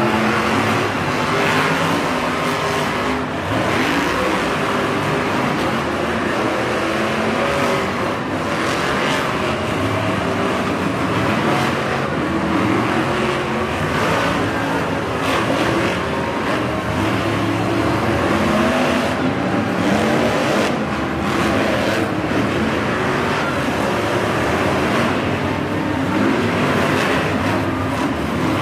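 Several monster trucks' supercharged V8 engines running and revving, their pitch rising and falling with the throttle as the engines overlap.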